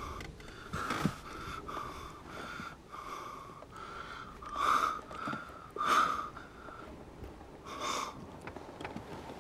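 A man breathing heavily and rhythmically, about two breaths a second, with three louder gasps in the second half.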